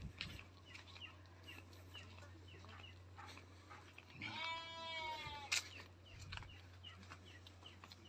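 A Nubian goat bleats once: a single wavering call about a second long, starting about four seconds in. Faint chirps sound in the background.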